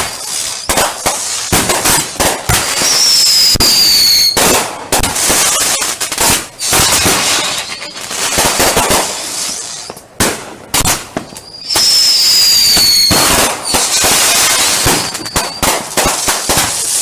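Fireworks finale: rapid, dense bangs and crackling with stretches of hiss. Two high whistles glide down in pitch, about three seconds and about twelve seconds in.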